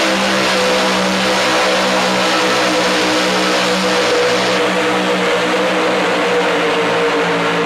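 Modified V8 gasoline engine of a 6300 lb outlaw 4x4 pulling truck running flat out under load as it drags a weight-transfer sled, loud and steady. Its note sinks slightly as the sled's weight slows the truck.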